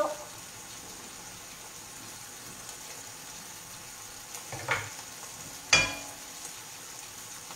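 Oil sizzling steadily in a frying pan on a gas stove. A couple of knocks, then a sharp ringing clink of a ceramic plate being handled near the end.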